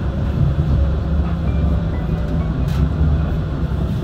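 Tram running, heard from inside the passenger cabin: a steady low rumble of the car rolling along the rails.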